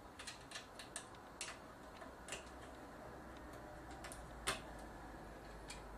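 Faint, scattered small clicks and taps of wiring-harness connectors being handled and pushed onto the pin headers of an LCD TV's power-supply board. Several come in the first second and a half, and a sharper click comes about four and a half seconds in.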